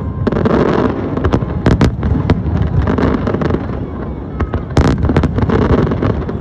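Fireworks display: a steady low rumble of shells bursting, with many sharp cracks and bangs scattered throughout, bunched most densely a little under two seconds in and again near five seconds in.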